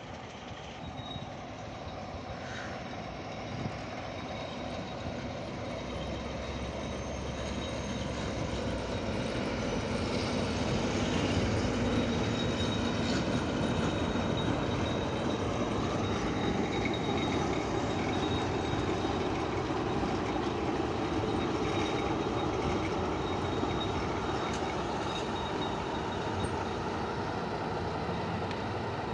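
ST43 diesel locomotive running during shunting, growing louder over the first ten or so seconds as it comes closer, then holding steady. A thin, steady high-pitched whine sits over the engine sound.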